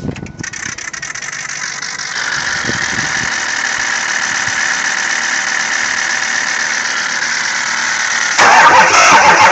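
A weird steady whine with squealing tones from a 2006 Ford F-250 with the 6.0 Power Stroke diesel that won't crank. It builds over the first couple of seconds and turns sharply louder near the end.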